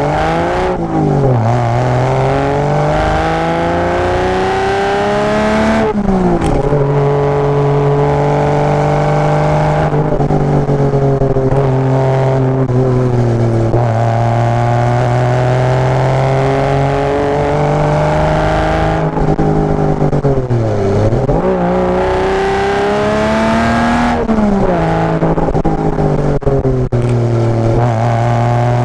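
Porsche Boxster engine with a tuned exhaust pulling hard under acceleration, its pitch climbing steadily in each gear. The pitch drops sharply at two upshifts, about six seconds in and near the end, and dips and climbs again more slowly where it eases off and accelerates back up.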